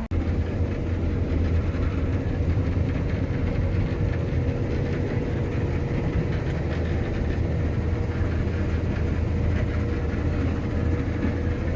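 Claas Lexion 650 combine harvester running steadily while reaping: a constant low engine hum with a thin steady tone above it and a haze of machinery noise.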